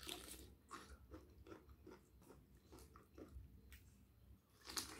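Close-miked chewing and biting of a mouthful of food eaten by hand, a run of soft wet chews about two a second. Louder bites come at the start and again near the end as another mouthful goes in.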